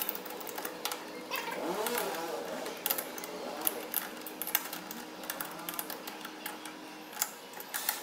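Metal clicks and clinks of a chuck key working the jaw screws of a lathe's four-jaw chuck as the jaws are closed onto a steel workpiece, with two sharper clicks near the end.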